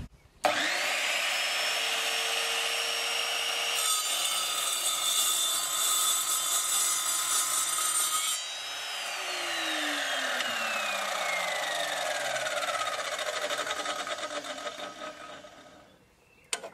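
Evolution Rage4 185 mm multi-material chop saw with a 20-tooth multi-purpose blade starting up with a rising whine. About four seconds in it bites into mild steel angle, and the cut lasts about four seconds. The saw is then switched off and the blade spins down, its whine falling steadily in pitch and fading out.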